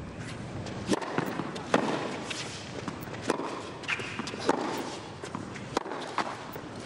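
Tennis rally on a hard court: sharp racquet-on-ball strikes, one after another, starting with the serve about a second in, with players' footsteps and a low crowd murmur.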